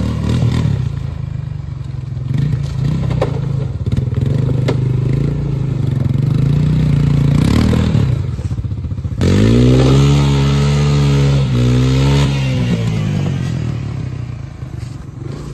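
An engine running steadily, then louder from about nine seconds in with its pitch rising and falling as it revs, fading away over the last few seconds.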